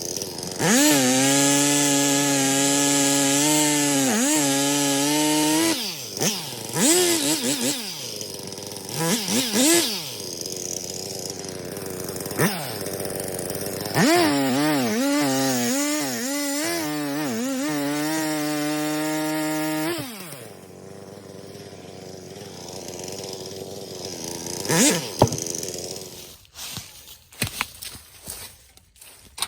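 Two-stroke chainsaw revved to full throttle in two long runs, its pitch sagging and recovering as it works, with short revs that rise and fall between them. It then runs quieter at idle, and a run of sharp clicks comes near the end.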